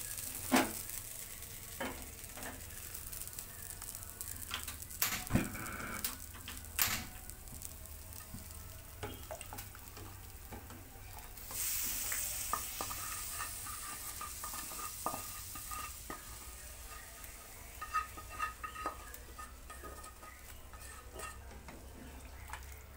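Spatula scraping and knocking against a metal frying pan and the rim of a steel pot as fried spice paste is scraped into the water, with scattered clinks throughout. A brief hiss rises about halfway through.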